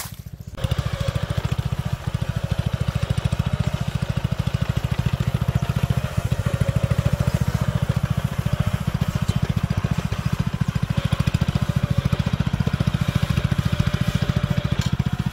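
Small engine of a tracked crawler power carrier running steadily with a fast, even firing pulse as the carrier is driven across the slope. It cuts in abruptly about half a second in.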